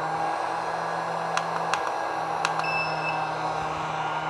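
Electric heat gun running steadily, its fan motor giving a low hum and a higher whine. Several sharp clicks in the middle as its control buttons are pressed, then a short electronic beep.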